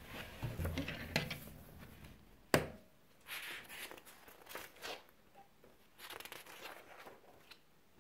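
Paper pages of a spiral-bound notebook being turned by hand, a series of short, soft rustles, after a single sharp knock about two and a half seconds in as the notebook is set down on the table.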